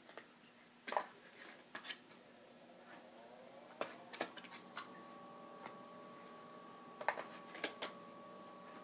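Faint, scattered crinkles and light clicks of a clear plastic bag being handled. From about four seconds in, a faint steady hum of a few tones runs underneath.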